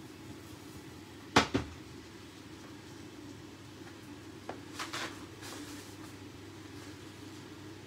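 A glass pan lid set down on a frying pan, knocking twice in quick succession about a second and a half in, then a few lighter clicks and rattles about three seconds later, over a steady low hum.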